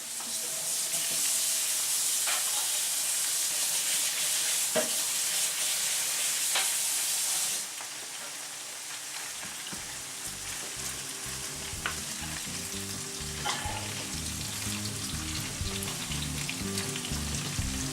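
Minced-beef steak sticks frying in oil in a pan, sizzling loudly for about seven seconds before it settles to a quieter sizzle. A few light knocks of a utensil against the pan come through the sizzle.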